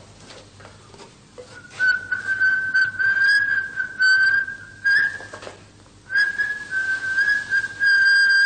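A person whistling a tune that hovers around one pitch with small wavers, breaking off about five seconds in and starting again a second later, over light knocks and rustles of things being handled.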